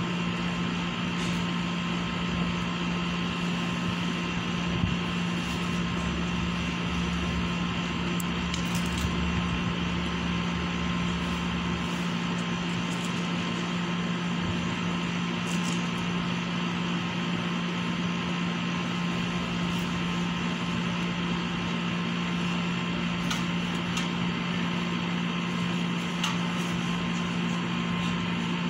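Steady mechanical hum of running air-conditioning units, a constant low drone with fainter steady higher tones and a few faint ticks.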